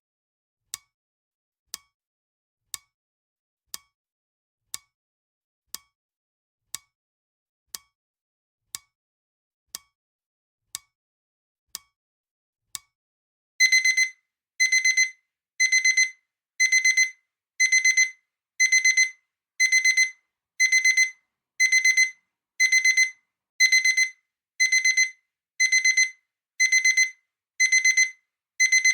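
Clock ticking once a second, then about 13 seconds in a loud, high-pitched electronic alarm starts beeping about once a second: the countdown timer has run out.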